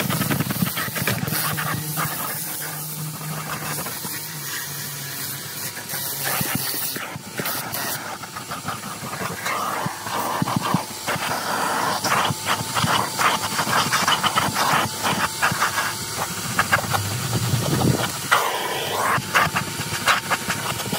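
Vacuum cleaner running with a rushing hiss of air and a faint steady motor whine, its hose nozzle sucking and scraping over dirty truck floor carpet. It makes many short scraping clicks, thickest in the second half.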